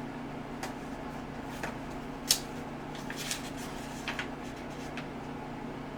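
A few light clicks and taps of the desoldering iron's stand and its packaging being handled, the loudest a little over two seconds in, over a steady low hum.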